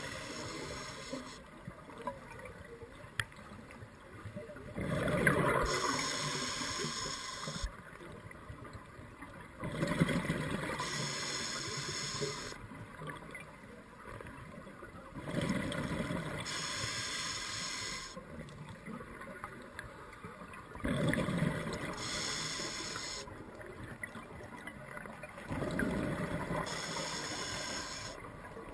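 Scuba diver breathing through a regulator underwater in a slow, even cycle: a loud rush of bubbles about every five seconds, each fading away over a couple of seconds, with quieter stretches between.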